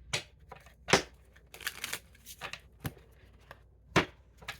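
Tarot cards being handled: a series of sharp clicks and slaps, with a quick flurry of them near the middle and the loudest slaps about a second in and near the end.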